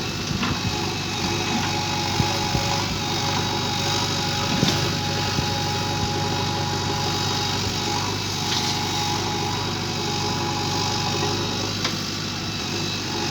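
JCB excavator's diesel engine running steadily at an even speed, with a couple of brief knocks.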